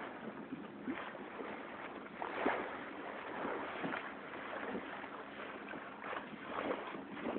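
Water rushing and splashing along the hull of a small sailing catboat under way through choppy water, in irregular surges, the loudest about two and a half seconds in and another near the end.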